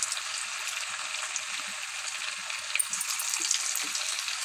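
Chegodi dough rings deep-frying in hot oil in a kadai, a freshly added batch: steady sizzling and bubbling, with a few sharper crackles about three seconds in.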